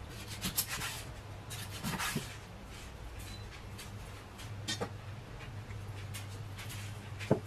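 Kitchen knife cutting raw chicken wings on a wooden cutting board: a few knocks and scrapes of the blade against the board, about half a second in, around two seconds and near five seconds, with rubbing as the raw chicken is handled, and a sharper thump near the end. A low steady hum runs underneath.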